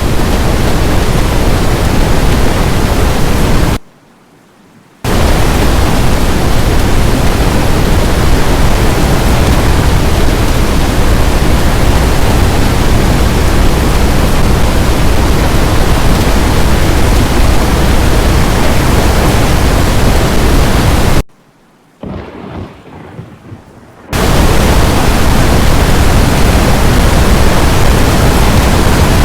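Loud, steady rush of storm wind and rain blasting the microphone, heaviest in the low rumble. It cuts out abruptly twice, briefly about four seconds in and for about three seconds near the end.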